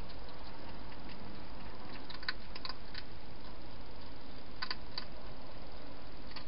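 Wild hedgehog eating at a feeding bowl: scattered small crisp clicks of chewing, in two clusters around the middle, over a steady hiss.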